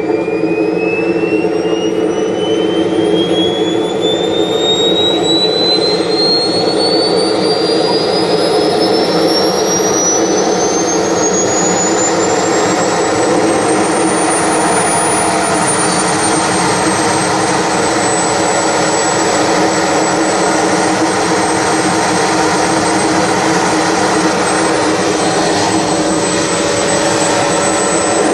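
Whine of a JetCat P-220RXi model turbine engine in a scale Fiat G91 jet, rising steadily in pitch for about fourteen seconds as it spools up. It then settles to a steady high whine over a lower rumble, and begins to climb again at the very end.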